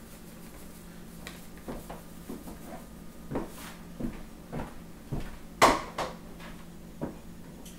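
Light knocks and clatters of plastic bowls and containers being handled and set down on a kitchen counter: a string of small, scattered taps, with one sharper knock a little past halfway.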